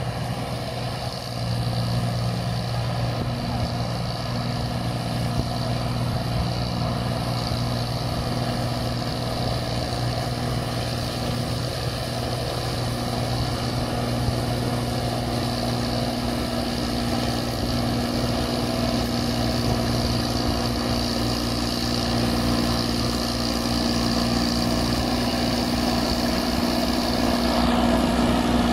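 New Holland 8080 combine harvester's diesel engine running steadily with its harvesting machinery turning as it drives through deep paddy mud. The drone holds an even pitch and grows a little louder near the end as the machine comes closer.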